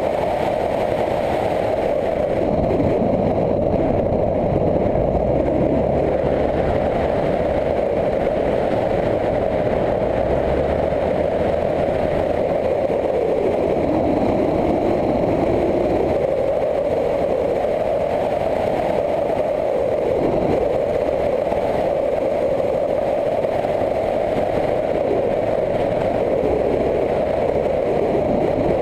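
Motorcycle engine running under way, heard from on board, with its note dropping and climbing again twice.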